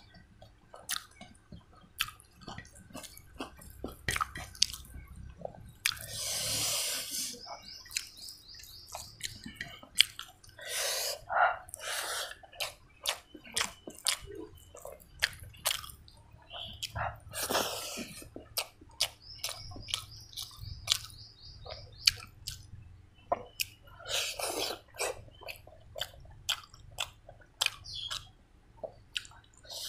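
Close-miked eating by hand: wet lip smacks and chewing of pork curry with rice, heard as many sharp wet clicks. A few longer, noisier mouthfuls come about six, eleven, seventeen and twenty-four seconds in.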